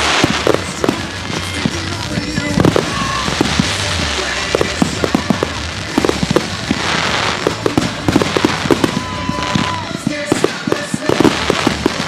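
Fireworks going off in quick succession, with many sharp bangs and pops and several bursts of crackling, over background music.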